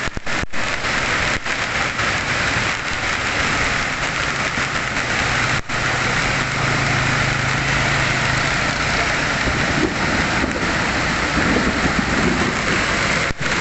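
Heavy rain pouring down steadily. A low steady hum comes in about four seconds in and fades out a few seconds later.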